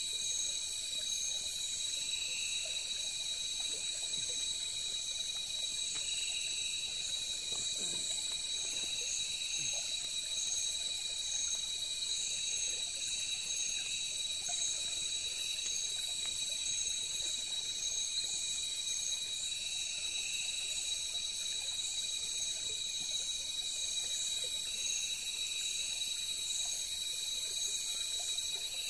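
Night chorus of forest insects: several high, steady trills at different pitches, with one voice pulsing about every two seconds.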